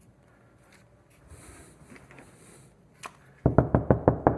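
Faint handling rustle and a click, then, about three and a half seconds in, rapid, loud, even tapping on the wall, about eight knocks a second, while probing for a wall stud.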